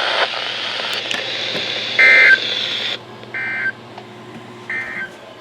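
Three short bursts of Emergency Alert System SAME data tones from a NOAA Weather Radio broadcast, each about a third of a second long and about a second apart: the end-of-message code that closes a severe thunderstorm warning. They sound over a steady radio hiss and low hum.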